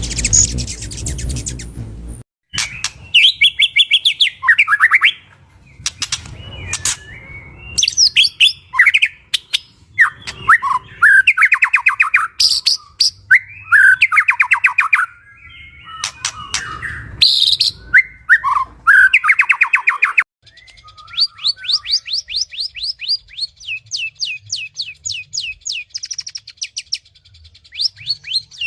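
Songbirds chirping and calling in short, varied phrases, with abrupt cuts between recordings. For the last third, a fast, even series of high chirps repeats.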